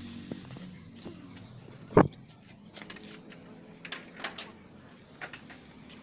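Small metal parts and wiring being handled: scattered light clicks and clinks, with one loud knock about two seconds in.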